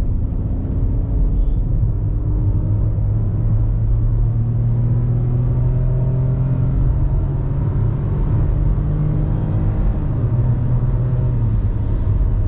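In-cabin sound of a Ford EcoSport's 1.5-litre Dragon three-cylinder petrol engine pulling under steady acceleration, its note rising slowly, then dropping near the end, over a constant rumble of tyres and road.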